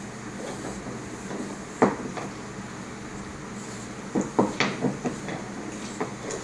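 A bulldog gnawing a deer antler: hard clicks and knocks of teeth on antler and of the antler against the wooden floor. One sharp knock comes about two seconds in, then a quick run of clicks around four to five seconds.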